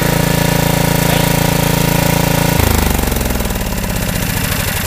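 Small steam engine with a flywheel running fast and belt-driving a generator, a steady rapid machine beat. Just over halfway through, its pitch falls and the beat slows as the engine runs down.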